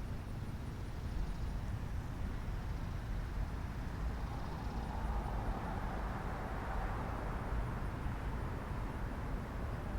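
Steady outdoor background noise dominated by a low rumble, with a broad swell of noise that builds and fades about five to eight seconds in; the siren is not sounding.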